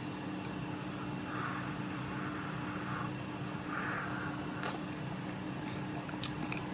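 Steady low hum of room background. Over it, a man sips tea from a small porcelain cup, heard as soft noisy sips in the first few seconds, with a light click a little past the middle.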